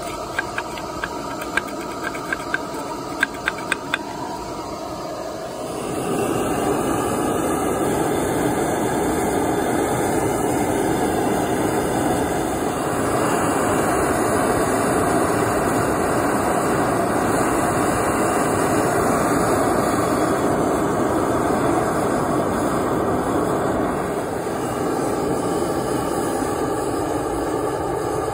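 A few sharp clicks of a metal tool scraping and tapping inside an ingot mould, then a gas burner heating a crucible of molten gold runs with a steady, loud rushing noise from about six seconds in, growing louder again around thirteen seconds.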